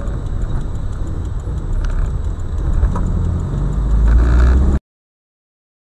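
In-car dashcam audio of a car driving on a rain-wet road: a steady deep rumble of engine and tyres, with a few light clicks and rattles. It cuts off abruptly to silence near the end.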